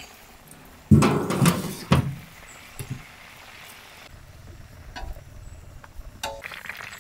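Metal clatter and ringing about a second in, lasting about a second, as the fried goat carcass is handled on a large steel platter beside the iron frying pan; a few faint knocks follow.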